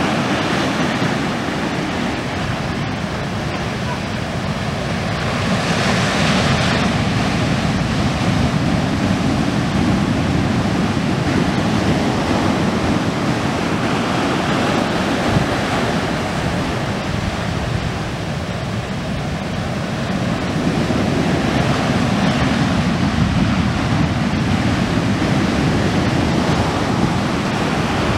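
Ocean surf breaking on the shore and against concrete breakwater blocks: a continuous rush of water and foam that swells as each large wave comes in, roughly every eight seconds.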